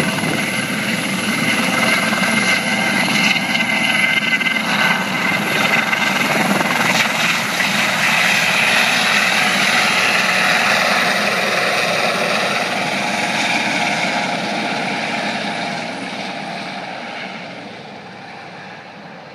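Eurocopter helicopter lifting off and flying away, its turbine whine and rotor noise steady and loud at first, then fading over the last few seconds as it climbs into the distance.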